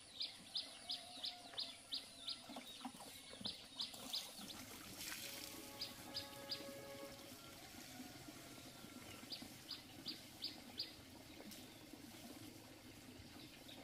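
A bird calling in runs of short, high chirps, about three a second, in several bursts with pauses between.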